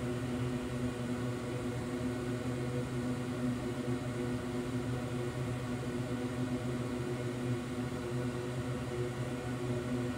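A steady machine hum with several fixed tones, like a small fan or motor running, unchanged throughout.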